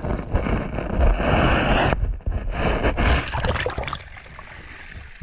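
Shallow seawater sloshing and rushing around an action camera held just under the surface, with a heavy low rumble. The noise drops away sharply about four seconds in as the camera comes up out of the water.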